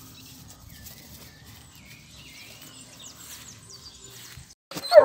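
Faint background with a few faint, high wavering chirps, then near the end, after a brief drop-out, a hunting dog starts baying loudly in long, held howls.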